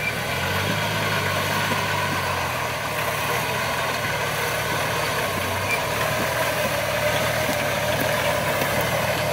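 Off-road 4x4 vehicle engine idling steadily; a low rumble is strongest in the first few seconds and drops away about halfway through.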